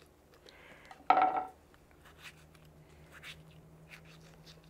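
Ripe tomatoes being torn apart by hand and dropped into a glass blender jar: faint soft squishes and small clicks over a steady low hum. About a second in comes one brief loud sound with a ringing tone.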